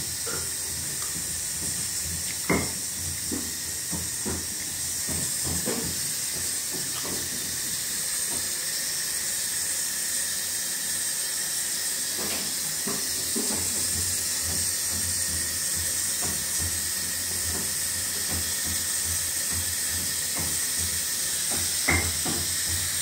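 Pressure cooker on a gas stove hissing steadily as steam escapes from its valve, with scattered light clicks and two sharper knocks, one about two and a half seconds in and one near the end.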